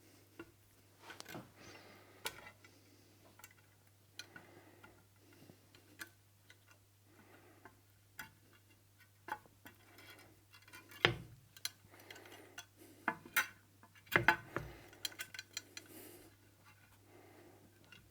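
Scattered light clicks and metal knocks of the measuring microscope stage's guideway and blocks being worked into place by hand, the sharpest knocks about eleven seconds in and again around fourteen seconds in, over a faint steady low hum.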